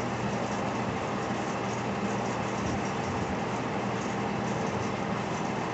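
A steady machine hum with an even rushing noise over it, unchanging in pitch and level.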